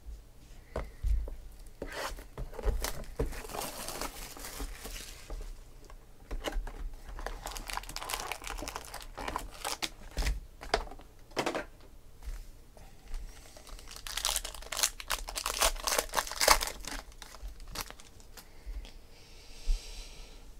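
Trading card pack wrappers being torn open and crinkled, with cards handled and flicked through in the hands, giving many short crackles and clicks.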